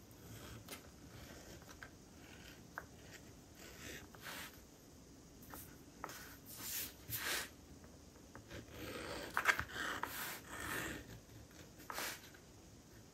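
Irregular scraping and rubbing strokes of hand tools working leather, with a few light clicks. The strokes come in short separate bursts, with a denser run of them a little past the middle.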